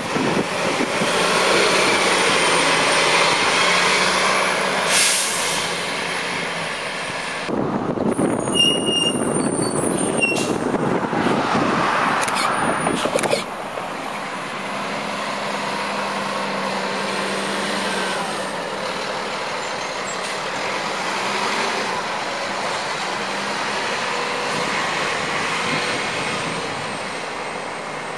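City transit buses running and pulling away close by, one after another, engines and tyre noise passing. About five seconds in there is a brief air-brake hiss.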